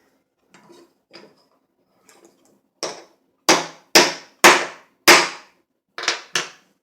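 Hammer tapping a pin punch to drive the small tapered roll pin into an AR-15 extended charging handle latch: a few light taps, then about seven sharp strikes, the loudest in the middle, as the pin is driven home.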